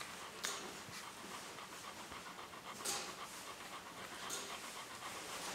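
Nursing mother dog panting steadily and quickly, with three short breathy hisses standing out.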